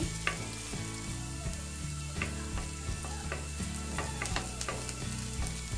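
Chopped onion frying in a little oil in a nonstick wok, sizzling, while a wooden spatula is stirred through it with irregular scrapes and taps against the pan.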